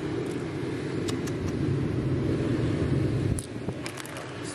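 A few sharp clicks of stones knocking together as a hand gathers them and sets them into a plastic tub, over a steady low outdoor rumble that drops off about three and a half seconds in.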